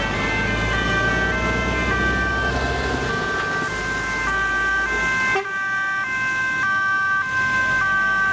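Several two-tone emergency-vehicle sirens sounding at once. Their high and low notes switch out of step with one another. A low rumble under them drops away about halfway through.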